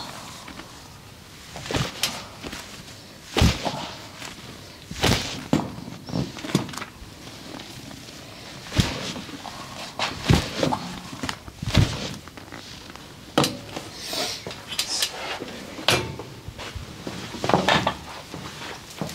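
Massage: about a dozen sharp slaps or knocks of the masseur's hands on the body, coming irregularly a second or two apart.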